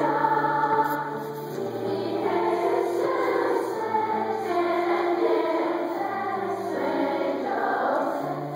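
A children's choir of sixth-graders singing held notes together, accompanied by piano.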